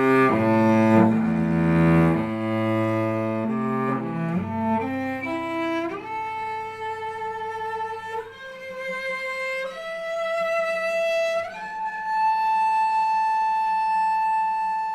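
Solo cello playing a slow melody: low notes at first, then stepping up to higher notes and ending on one long held note.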